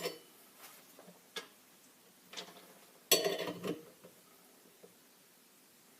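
Metal tools clinking and knocking against the rifle as the muzzle compensator is fitted back on, with a few separate clicks and a louder metallic clatter about three seconds in.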